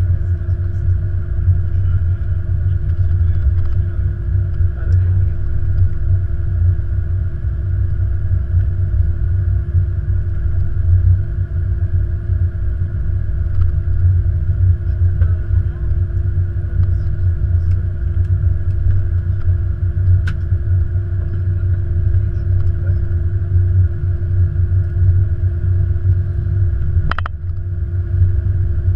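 Airbus A330-200 rolling out on the runway after landing, heard from the flight deck: a steady low rumble from the wheels and airframe with a steady hum over it. A brief click comes near the end.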